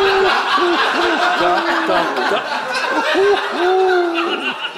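Studio audience laughing, with a voice drawn out in long, held tones over the laughter.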